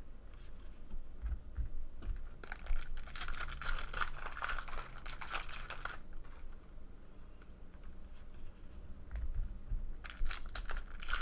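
Foil wrapper of a trading-card pack being torn open and crinkled, in two spells of rustling: one starting about two and a half seconds in and lasting a few seconds, another near the end. A faint low hum runs underneath.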